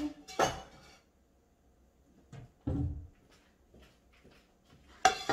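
A few separate knocks from a kitchen cupboard as a ceramic plate is fetched, then a sharp clack near the end as the plate is set down on the stone countertop.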